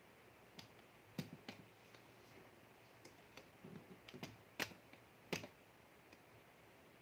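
Near silence broken by scattered sharp clicks and taps, a cluster of small ones in the middle and the two loudest about halfway through and a second later.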